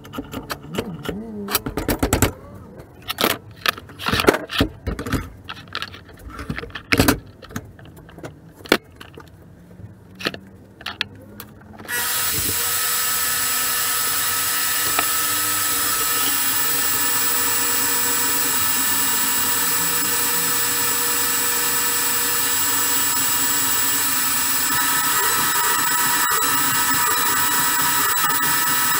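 Irregular metal clanks and knocks of parts being handled at a bench vise, then a portable band saw switched on about 12 seconds in, running steadily with a whine. Near the end its sound changes as a piece of stainless steel is fed into the blade.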